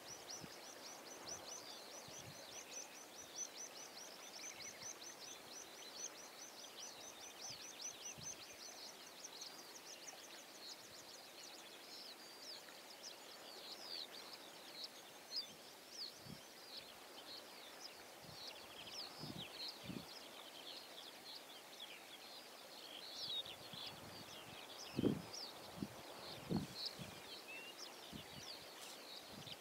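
Small birds singing on open saltmarsh: a continuous run of high, rapid chirping trills, very fast and even at first, then more varied notes, over a faint hiss. A few short low thumps break in, the loudest about two-thirds of the way through.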